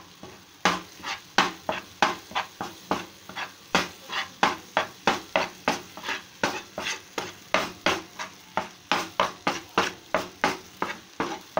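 Metal spatula scraping and stirring a besan and cream mixture in a frying pan, about three brisk strokes a second, over a low sizzle of hot ghee. The cream is cooking down into mawa on a raised flame.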